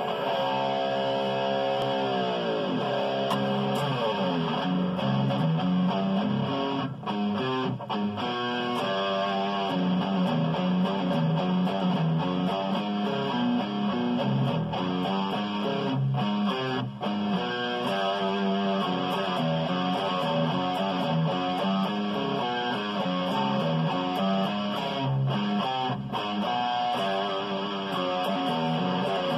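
Ibanez electric guitar being played: a quick run of picked single notes, with a long downward pitch slide in the first few seconds.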